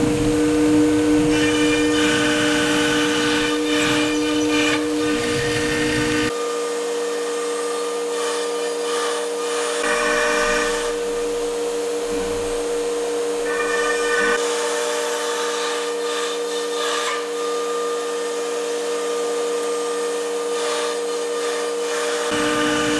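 Talent CNC router spindle running with a steady whine as its compression bit cuts a melamine sheet, under the hiss and rush of dust extraction through the brush-skirted hood.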